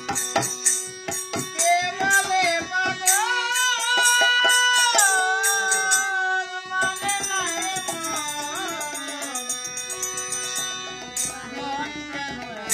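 A Bengali folk song performed live: a man singing over held harmonium notes, with a hand-played barrel drum (dhol) beating out the rhythm.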